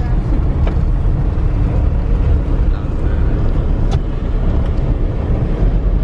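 Car driving along a dirt road, heard from inside: a steady low rumble of engine and tyres, with a couple of faint knocks about a second in and again near the end.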